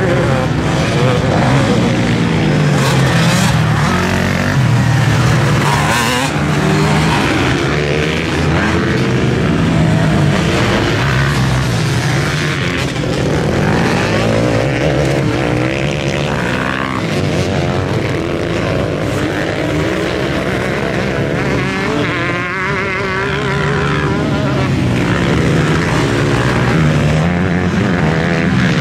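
An engine running continuously, its pitch rising and falling as the revs change.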